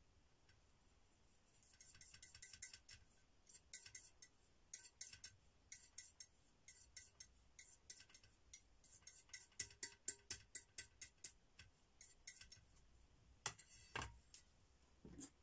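Faint, irregular light clicks and clinks of small objects being handled, several a second, then a louder knock about fourteen seconds in, as a round white dish or lid is set down.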